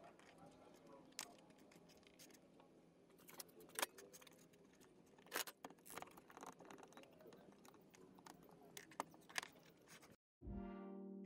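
Faint scattered clicks and taps of small wooden pieces being handled, taped and clamped on a workbench, over a low steady hum. Near the end the sound cuts out and music begins.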